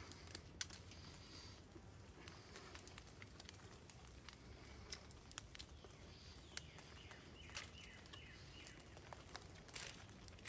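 Near silence: faint outdoor background with scattered small clicks and rustles.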